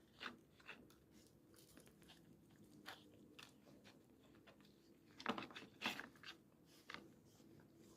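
A dog chewing and crunching food: irregular crunches, loudest twice about five to six seconds in.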